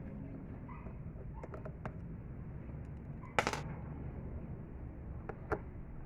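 A few light clicks and knocks over a steady low rumble, with one louder clatter about three and a half seconds in and a sharp click near the end.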